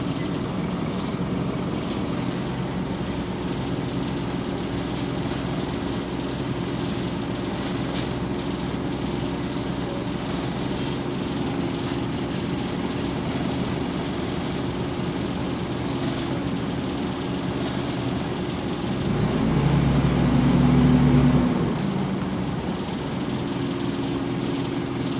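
Scania OmniCity city bus engine and drivetrain heard from inside the cabin, a steady hum with two held tones. About nineteen seconds in it swells louder and lower for roughly two seconds, then settles back to the steady hum.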